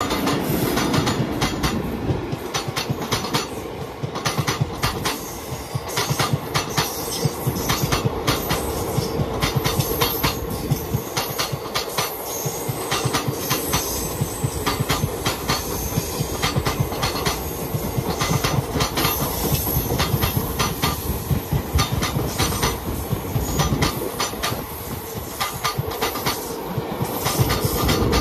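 Express passenger train running at speed, its wheels clattering over rail joints in a fast clickety-clack over a steady rumble and a constant hum.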